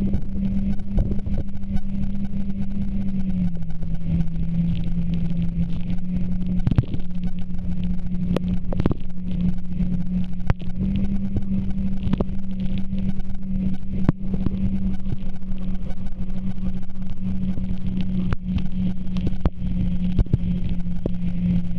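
Jet ski engine running at a steady cruising speed, a constant drone whose pitch drops slightly a few seconds in and rises back about halfway through. Occasional sharp slaps of water against the hull as it crosses the chop.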